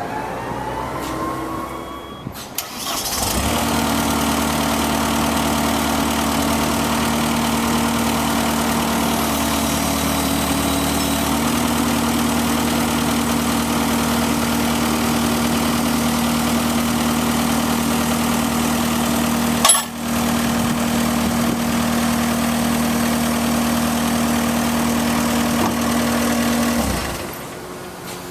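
Caterpillar 226B skid steer loader's diesel engine starting about three seconds in and running steadily, its tone shifting a little partway through, then shutting off near the end. A single sharp click sounds about two-thirds of the way through.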